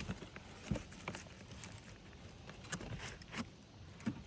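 Scattered light knocks and clicks of a steel pry bar working against cedar roof shakes, with one sharper knock under a second in.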